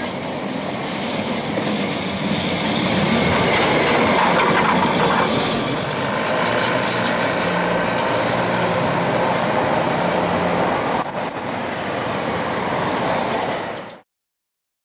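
Carris historic electric tram running along street rails: a steady rumble of wheels and running gear with a low hum through the middle and a sharp click about eleven seconds in. The sound cuts off suddenly near the end.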